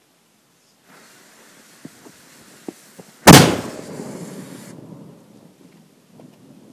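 Homemade PVC cannon firing once with a single loud boom about three seconds in, its ball-milled black-powder charge launching a C-cell battery; the boom trails off in a rumbling echo over about a second and a half. A steady hiss with a few faint crackles comes before it.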